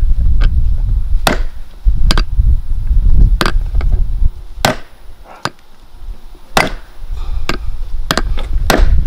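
About nine sharp metal-on-metal hammer blows, with a two-second pause in the middle. A small sledgehammer strikes a steel socket used as a drift on a Polaris RZR drive shaft yoke to drive out the old U-joint's bearing cups.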